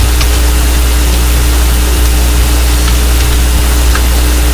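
Steady loud low electrical hum with hiss, the recording's constant background noise, with a couple of faint clicks, about the time the font-size command is typed into the code.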